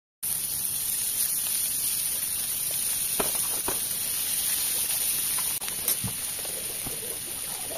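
Gola kababs and sliced onions sizzling on a hot iron sizzler plate: a steady hiss with a few light clicks and taps.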